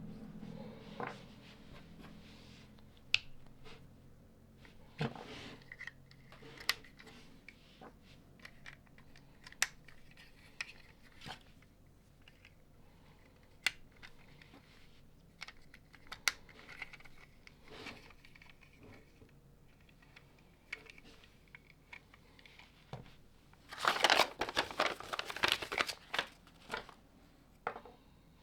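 Small LEGO plastic pieces being handled and pressed together: scattered sharp clicks and taps, with a dense burst of rustling and clicking about 24 seconds in.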